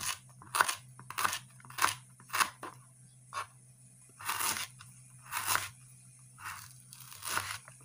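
Kitchen knife cutting through a crisp, fibrous torch ginger (kecombrang) flower stalk onto a wooden cutting board, with a crunch at each cut. The cuts come about every half second at first, then change to four longer, drawn-out crunches.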